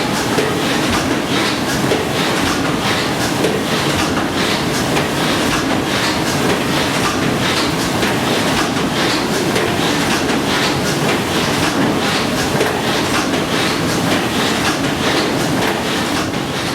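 Escher Wyss steam engine of the paddle steamer Blümlisalp running at steady speed: a continuous rhythmic clatter of quick clicks and knocks over a constant hiss.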